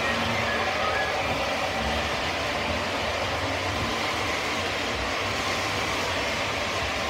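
O scale model trains running along the track, with the steady rumble of wheels and motors as cars pass by.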